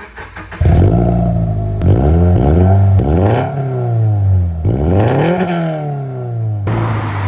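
Subaru BRZ's flat-four boxer engine comes in suddenly about half a second in and is revved several times, the pitch rising and falling with each blip of the throttle, then settling to a steady idle.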